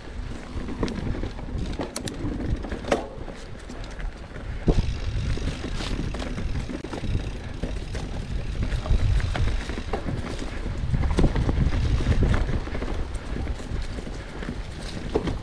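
Mountain bike ridden along a leafy dirt singletrack: tyres rolling over dirt and leaves with a steady low rumble, and frequent sharp clicks and rattles from the bike jolting over bumps and roots.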